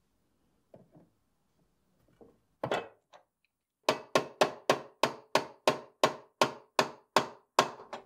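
Spline key being tapped into the keyway of a mechanical safe lock's wheel cam and dial spindle with the head of a pair of pliers. There is one sharp tap a little under three seconds in, then about a dozen quick, even taps at roughly three a second.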